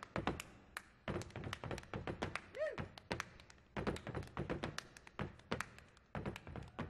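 Solo body percussion: rapid hand slaps on the chest and body played in quick rhythmic bursts, with short breaks between the phrases.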